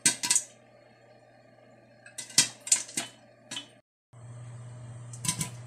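Popcorn kernels popping inside a covered stainless-steel pot: two quick pops at the start, a few scattered pops between two and four seconds in, and a quick cluster near the end. A steady low hum sets in about four seconds in.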